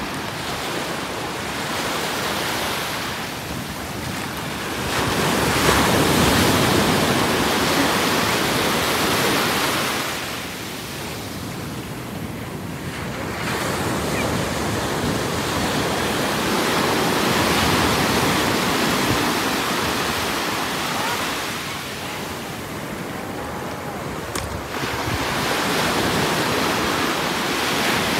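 Ocean surf breaking and washing up the beach in a steady rush that swells louder twice and falls back between, with wind blowing across the microphone.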